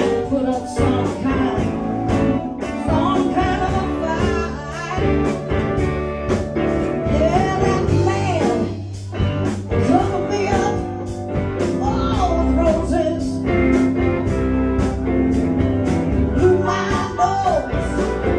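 Live blues band playing with a steady beat: electric guitars, bass, drums and keyboard, with a harmonica over the top.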